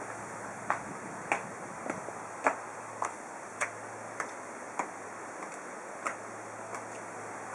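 High-heeled shoes clicking on a concrete floor: about eleven evenly spaced footsteps at a walking pace, over a steady background hiss.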